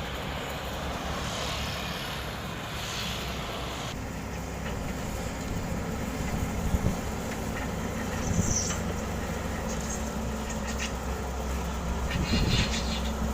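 Heavy construction machinery diesel engines running steadily, with a few metallic knocks and clanks partway through and near the end.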